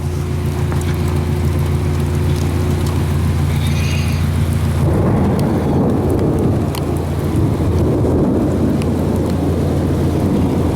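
Heavy rain falling on a car, heard from inside the cabin, over the steady low hum of the idling car and its defroster fan. About five seconds in, a long, loud rumble of thunder sets in and continues.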